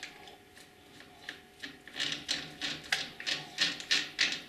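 Metal clicking and scraping as a heavy anamorphic lens is fastened by hand into the lens holder of a Bauer B 8 B cinema projector: a run of irregular small knocks starting about a second in.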